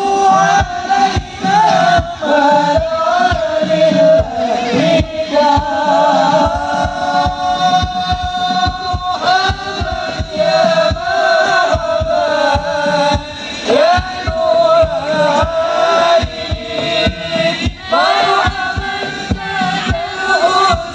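Sholawat (devotional singing in praise of the Prophet) by male voices in chant-like unison over a steady, driving rhythm of massed rebana frame drums, amplified through a PA.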